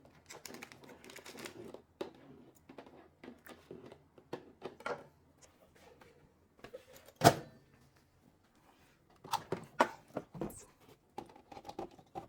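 Kitchen handling noises: scattered light clicks and knocks of utensils and containers being moved about, with one sharp knock about seven seconds in and a quick run of knocks a couple of seconds later.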